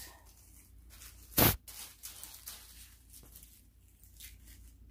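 Small plastic zip bags of rhinestone drills crinkling and the drills rattling softly as they are picked up and sorted by hand. There is one brief, sharp, louder clack about one and a half seconds in.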